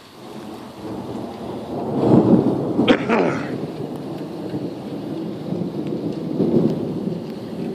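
Thunder rumbling over steady rain, swelling about two seconds in with a sharp crack near three seconds, then rolling on with a second swell near the end.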